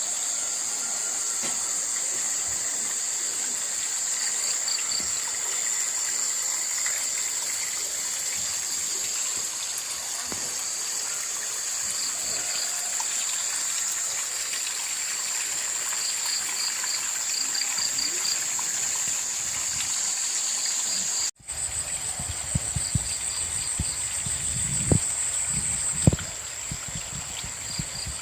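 Insects droning steadily in a high-pitched chorus, with short bursts of rapid pulsed chirping from time to time. After a brief break near the end, scattered low knocks and bumps join the chorus.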